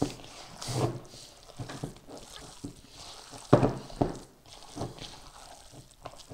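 Bare hands squishing and kneading raw ground beef mixed with egg white and spices in a plastic bowl: irregular squelches, the loudest about three and a half seconds in.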